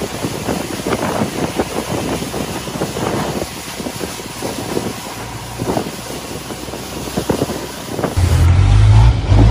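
Wind on the microphone and water splashing past a moving river boat. About eight seconds in, the low, steady drone of the long-tail boat's engine comes in loudly.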